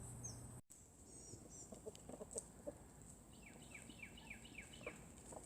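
Chickens clucking faintly in short, scattered calls, with a quick run of about seven high, falling chirps in the middle.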